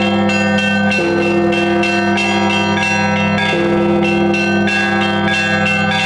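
Russian Orthodox bell ringing on a set of seven newly cast church bells, one ringer working the ropes. Quick repeated strikes on the small bells, about three a second, ring over a low, lasting hum from the large bell, which is struck again about a second in and once more past the middle.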